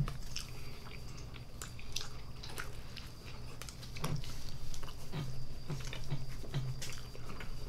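Close-miked chewing of cheeseburger mouthfuls: soft, wet mouth clicks and smacks at irregular intervals, over a steady low background hum.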